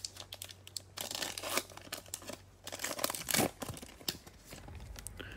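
A Panini Prizm football card pack's wrapper being torn open and crinkled by hand, in irregular bursts of tearing and rustling that are loudest about a second in and again about three seconds in. A steady low hum runs underneath.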